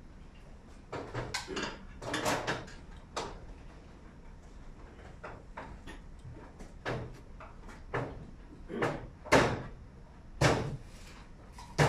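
Irregular clacks and knocks of hard objects as LED video-wall cabinets and their fittings are handled on a steel mounting frame, the loudest about nine and a half seconds in.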